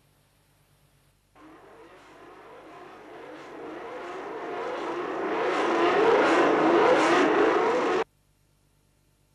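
Formula One car engine running hard, starting suddenly and growing louder, its revs rising and falling, then cutting off abruptly about eight seconds in.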